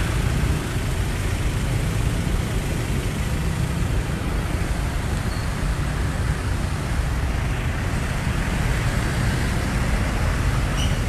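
Motorcycle taxi riding through city traffic: steady engine and road noise with no breaks.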